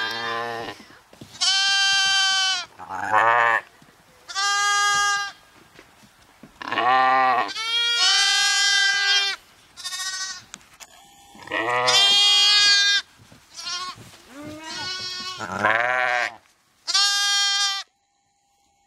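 Romney lambs baaing, about a dozen high, wavering bleats of around a second each, one after another with short gaps.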